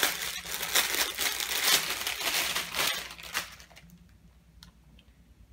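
Clear plastic bag crinkling loudly as it is handled and pulled open, stopping about three and a half seconds in; a few faint clicks follow.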